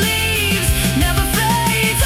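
AI-generated alternative rock, an instrumental passage with a full band sound: a steady bass and a lead melody that bends and glides in pitch.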